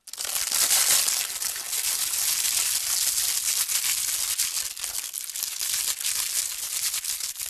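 Foley imitation of fish sizzling in hot oil, made by crinkling and crushing a handful of crumpled plastic close to the microphone: a dense, continuous crackle that starts suddenly.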